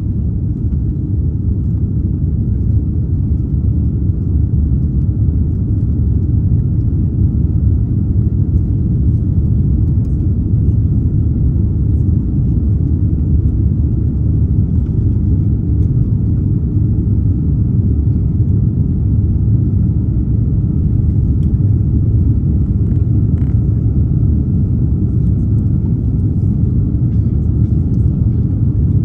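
Cabin noise inside an Airbus A330neo airliner: a steady low rumble of the engines and airflow, with a faint steady whine above it.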